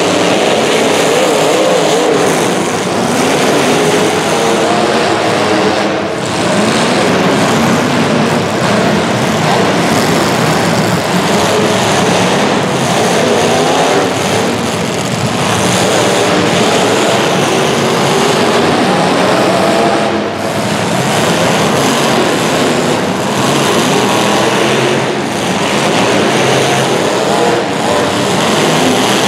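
Several racing engines running together through a race heat. Their overlapping pitches rise and fall as the drivers throttle up and lift.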